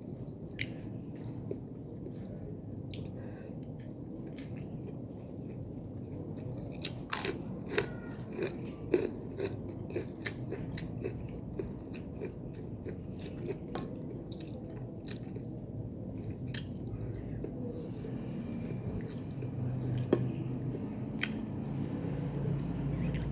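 Close-up chewing and biting of food, with sharp crunchy clicks that come thickest about a third of the way in.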